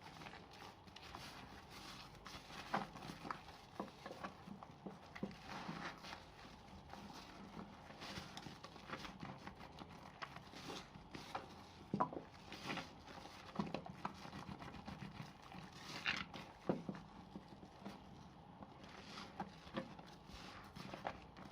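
Wet soap being lathered by hand: irregular squelching and sticky clicking as stuck-together soap remnants are worked into foam.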